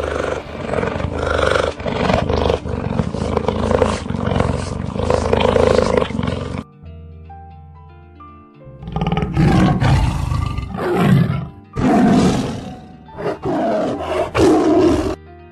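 Lion roaring over children's background music: a long rough bout of roars, a pause of about two seconds with only the music, then four more roars in a row.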